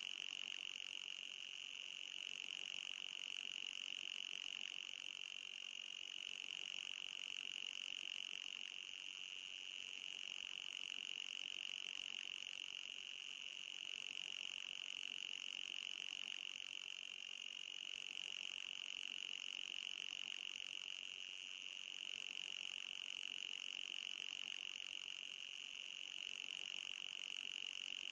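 Electronic anti-mosquito repeller tone: a steady, high-pitched whine with a fainter, higher overtone above it. It plays as a loop, with a slight seam about every twelve seconds where it restarts.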